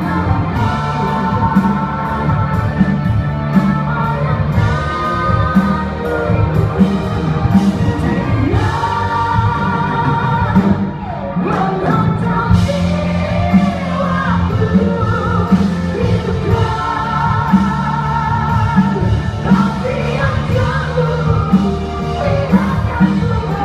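Live band and orchestra playing a slow pop ballad: a steady drum beat under a long held melody with vibrato.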